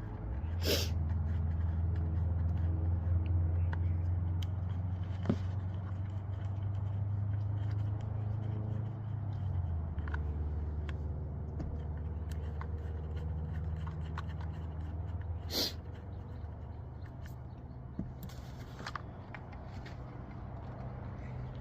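Handling noise as a replacement car side mirror is picked up and fitted: a few sharp clicks and light scraping over a steady low rumble.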